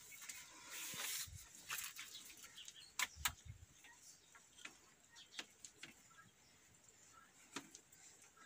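Faint rustling, scraping and clicking of a coil of black plastic drip-irrigation tubing being pulled out and handled, with two sharp clicks and a dull knock about three seconds in.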